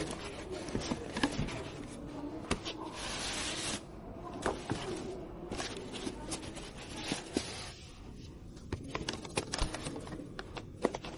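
PC parts and packaging being handled: a run of sharp clicks and taps with light rustling, and a short hiss-like rush about three seconds in.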